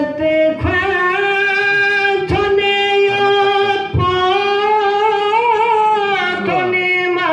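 A solo voice singing a Balti devotional qasida in long, held notes that waver slowly in pitch. Three low thumps fall about a second and a half apart in the first half.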